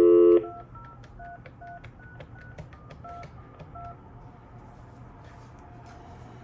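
A telephone number being dialed on a phone keypad: a short loud beep, then about ten quick touch-tone (DTMF) beeps, each a pair of tones. The beeps stop about four seconds in, leaving a faint line hiss while the call connects.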